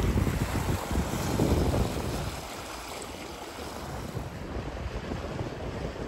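Wind buffeting the microphone in low rumbling gusts for about the first two seconds, then a quieter, steady rush of wind and water aboard a small sailboat under way.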